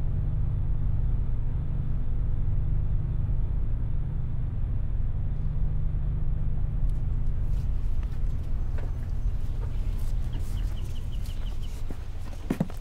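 A steady low rumble, like a vehicle engine running, that fades from about eight seconds in. It gives way to scattered clicks and knocks and a quick run of short high bird calls, like a hen clucking, about ten seconds in.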